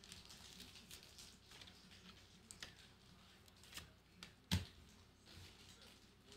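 Faint rustling and light clicks of trading cards and their packaging being handled, with one sharper click about four and a half seconds in.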